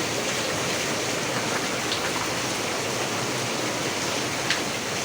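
Heavy rain pouring down in a steady, dense hiss, with one faint tick near the end.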